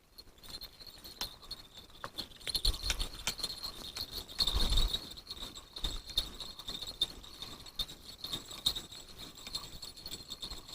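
Spinning reel being cranked to wind in a feeder ledger rig after a slack-line bite: a steady high whirr with scattered clicks, and a brief rustling burst about four and a half seconds in.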